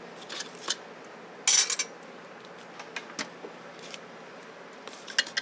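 Metal clinks of stainless-steel serving tongs and a buffet chafing dish, with a loud clatter of metal about a second and a half in as the dish's domed lid is swung shut. A few lighter clinks follow.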